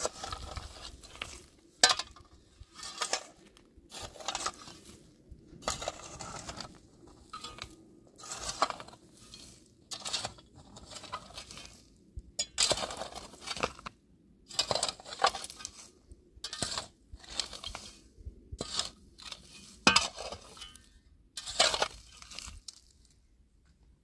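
Hard objects being handled: irregular scrapes and clinks in short strokes about a second apart, with a few sharper knocks, the loudest about two seconds in and again near the end.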